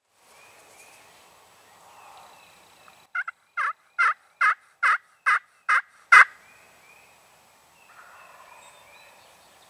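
A series of eight loud turkey yelps about 0.4 s apart, each note dropping sharply in pitch, the last one the loudest. Faint songbirds chirp before and after the series.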